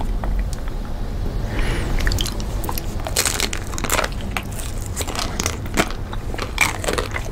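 Chocolate-coated frozen ice cream bars cracking and crunching as they are bitten into, with close-up chewing; the bites come thickest about three to four seconds in and again near the end, over a low steady rumble.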